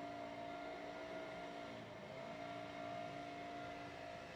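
A lawn mower's engine running steady in the distance, its pitch dipping briefly about two seconds in and then recovering.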